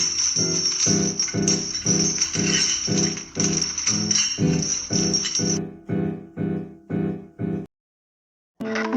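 Background music with a steady pulsing beat and a bright jingling top part that drops out about two-thirds of the way in; the beat then stops dead, and after about a second of silence a different piece of music starts near the end.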